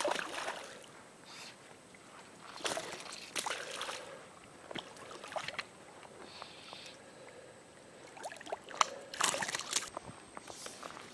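Juvenile tarpon splashing and swirling at the surface of a shallow creek as they strike at a surface fly: a splash at the start, a couple more around three seconds in, and the loudest about nine seconds in.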